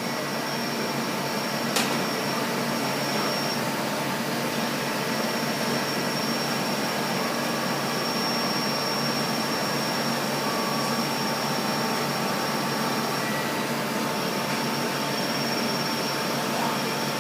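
Steady whirring hiss of running machinery or ventilation fans, with faint steady tones held over it. There is a single short click about two seconds in.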